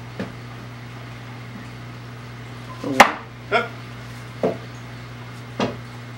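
Wooden knocks as cedar boards are handled and set down on the table during a glue-up: four knocks, the loudest about three seconds in, over a steady low hum.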